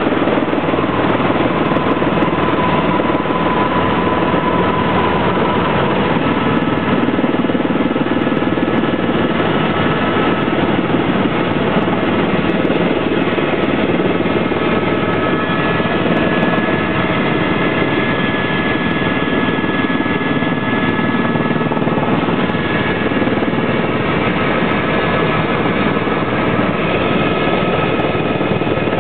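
Helicopter in flight heard from inside the cabin: a steady, loud drone of engine and rotors with a faint high whine over it.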